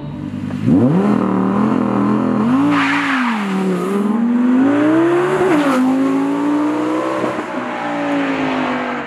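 Naturally aspirated 5.2-litre V10 of a 2020 Audi R8 V10 Performance accelerating hard as the car pulls away. The engine note shoots up under a second in, then climbs and dips several times, with a sharp drop just before six seconds and a slow fall toward the end.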